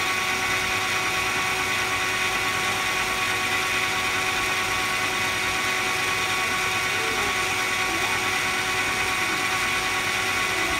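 Metal lathe running with the carriage power feed engaged, the tool taking a light finishing cut of about five thousandths toward a shoulder on the part. A steady whine of motor and gearing with an even cutting hiss, unchanging throughout.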